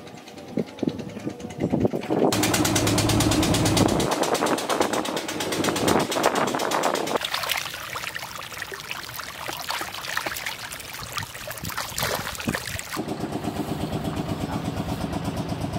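Outdoor sounds that change with each shot: a long stretch of splashing and sharp little splashes as a dense shoal of tilapia crowds the water surface, then, near the end, a small boat engine chugging with an even, rapid beat.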